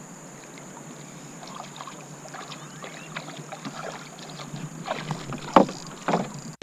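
Faint steady wind and water noise around a small poling skiff, then a few sharp splashes and knocks about five seconds in, the loudest near the middle of them, as a hooked fish pulls and the rod bends.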